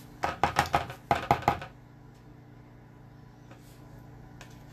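A quick run of about eight sharp knocks as a spatula scrapes and taps chopped herbs out of a plastic container into a bowl, over within about a second and a half, then a steady low hum.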